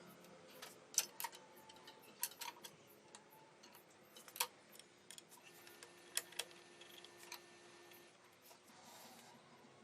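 Scattered light clicks and taps at irregular intervals, the sharpest about a second in and near the middle, over faint room noise.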